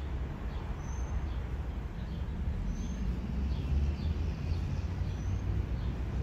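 Distant, steady low rumble of a Boeing 757-200 jet airliner flying high overhead. A small bird chirps a brief high note about three times, with fainter chirps between.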